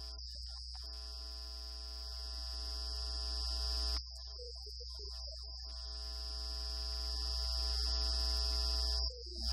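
Steady electronic drone: a stack of held tones over a low hum and a constant high whine, slowly swelling in level and cutting out abruptly about four seconds in and again near the end before resuming.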